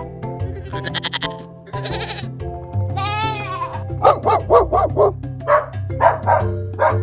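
Bleat-like animal calls over background music: several short, high calls rising and falling, then a quick run of about five calls a second around the middle.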